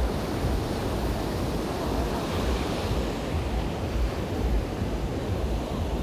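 Ocean surf breaking and washing up the beach in a steady hiss, with wind buffeting the microphone in irregular low rumbles.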